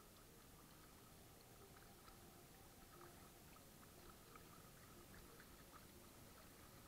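Near silence: faint lapping and dripping of water against the bow of an inflatable kayak, with scattered soft ticks.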